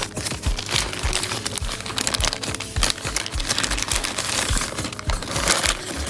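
Packaging crinkling and rustling as a new camera is unwrapped. It plays over background music with a steady beat about twice a second, and the crinkling stops abruptly at the very end.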